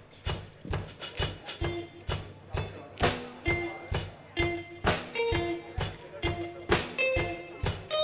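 Live band playing: a drum kit keeps a steady beat of about two hits a second, with short, clipped pitched notes from the other instruments over it and no singing.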